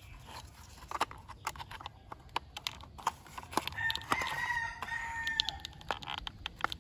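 Rooster crowing once, a call held for nearly two seconds starting about four seconds in and dipping in pitch at the end, over scattered light plastic clicks and taps from a toy car's wheel and axle being fitted by hand.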